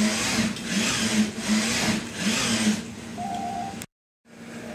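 Industrial robot arm's servo motors whining as it swings the paddle back and forth in four quick surges, the pitch rising and falling with each move. The sound cuts off abruptly about four seconds in, and a steady low hum follows.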